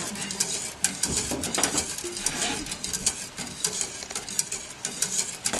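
A wire whisk stirring caramel sauce in a metal saucepan, its wires ticking rapidly against the pan as the sauce heats toward a boil.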